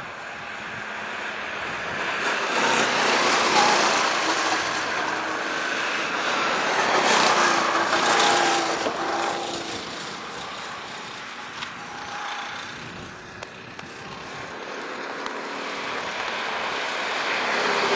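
Rental go-kart engines running on the track, getting louder and fading as karts pass, with the engine pitch rising and falling. The loudest passes come a few seconds in and near the middle, and another kart builds up near the end.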